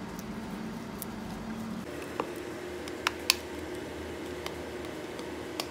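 Mango juice mixed with condensed milk being poured from a glass bowl onto whipped cream in a plastic tub: a quiet pour with a few light clicks, over a steady low hum.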